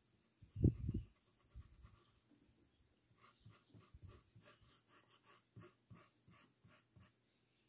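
Faint scratchy rubbing of a paintbrush on cotton cloth, in short even strokes about three a second through the second half. A dull low thump about half a second in is the loudest sound.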